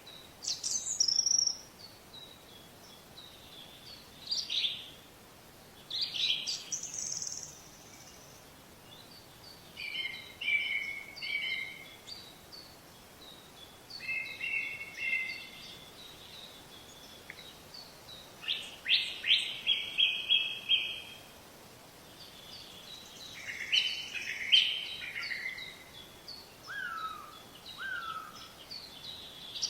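Songbirds calling and singing in short chirping phrases every few seconds, including a quick run of repeated notes about two-thirds of the way through, over a faint steady outdoor background.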